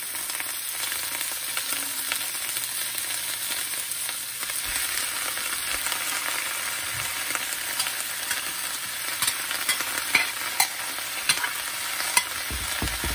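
Bok choy, onion and carrot sizzling steadily in a hot wok, with a few sharp ticks in the last few seconds.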